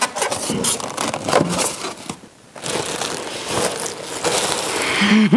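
Styrofoam packing scraping and creaking as it is lifted out of a cardboard box, then, after a short pause about two seconds in, a plastic wrapping bag rustling and crinkling as it is pulled off.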